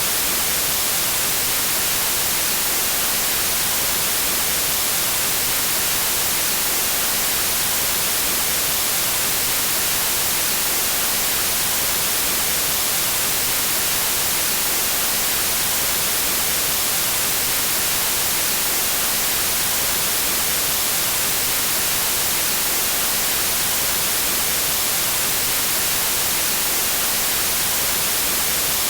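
Synthetic white noise: a steady, even hiss, strongest in the high frequencies, with no change over time.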